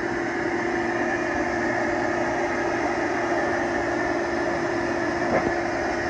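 Homemade bee vacuum running with a steady motor drone and a held hum, and a single short knock near the end.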